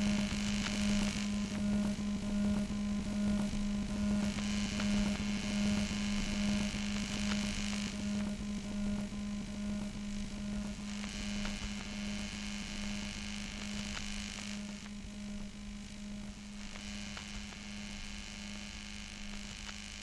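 Ambient, lowercase musique concrète: a steady low buzzing hum that pulses a few times a second, with a hissing layer that comes in and drops out every few seconds. The whole texture gradually gets quieter.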